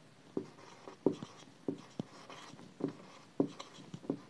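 Marker pen writing on a whiteboard: a string of short, irregular strokes and taps as letters are written.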